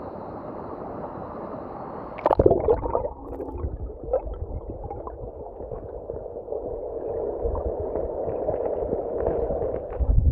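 River water rushing, then about two seconds in a sudden loud splash gives way to close, bubbly gurgling with low irregular thumps.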